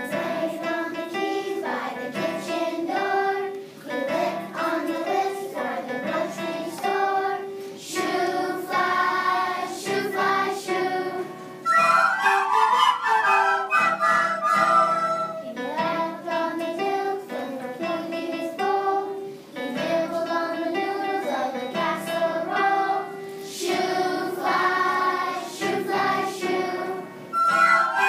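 A group of children singing a song together, accompanied by an electric keyboard.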